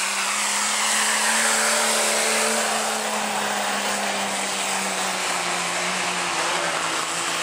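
Diesel pickup truck engine running flat out under heavy load as it drags a weight-transfer pulling sled, pouring out black smoke. Its drone holds a steady pitch, then sags slightly near the end as the load builds.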